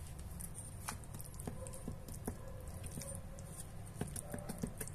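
Knife carving into the breast of a whole roast chicken held with a fork, making faint, scattered small clicks and moist squishing of skin and meat.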